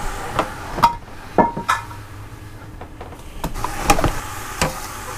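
A metal utensil knocking and scraping against the stainless steel inner pot of an Elite pressure cooker while pork pieces are turned as they brown. There are about eight sharp clinks, and a couple of them ring briefly.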